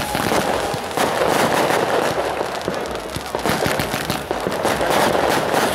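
Ground firework fountain spraying sparks: a continuous crackling hiss with many small pops.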